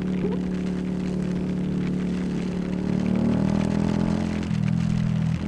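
Yamaha YZF-R125's single-cylinder four-stroke engine running steadily under way, over a hiss of wind and road noise. Its note shifts about four and a half seconds in.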